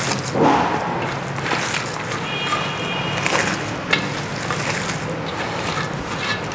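Raw beef mince and minced onion being kneaded and squeezed by hand on a steel platter: wet squelching and smacking with a few sharper squishes, as the meat is worked to open up its fibres. A steady low hum runs underneath.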